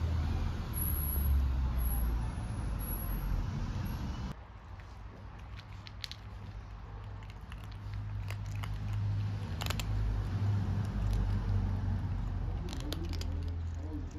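For about four seconds, outdoor wind noise rumbles on the microphone. Then, after a cut, two kittens eat dry kibble from a metal plate: quiet crunching with a few sharp clicks as the pellets are bitten and nudged against the plate.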